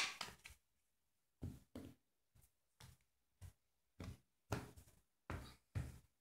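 Tarot cards being cut and set down in piles on a cloth-covered table: about ten short taps and slaps with quiet gaps between, the loudest right at the start.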